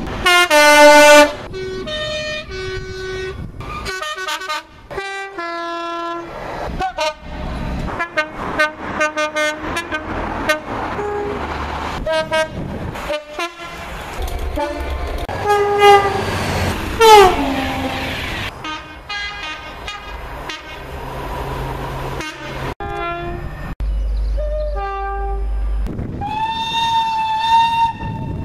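A rapid run of British train horn blasts from a series of different trains. Most are short two-note sequences, one tone then another, joined by abrupt cuts. One blast about two-thirds through falls in pitch, and a long, slightly wavering higher horn note sounds near the end, with train running noise underneath in places.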